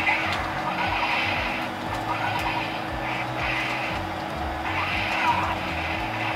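Fighting-game audio from a TV: game music with swishing and hit sound effects, including a sharp hit about five seconds in.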